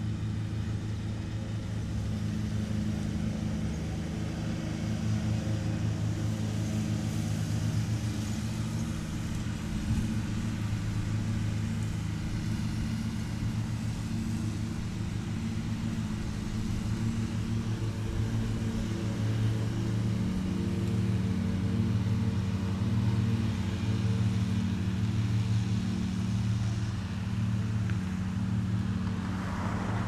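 Riding lawn mower engines running steadily while cutting a field of grass. The engine note shifts about two-thirds of the way through.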